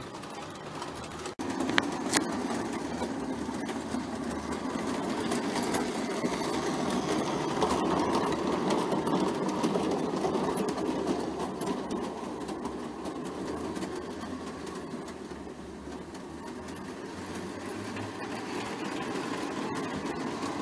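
O gauge three-rail model train running: a steady whirring rumble of its electric motor and wheels on the track. It breaks off briefly just over a second in, swells for a few seconds midway, then eases.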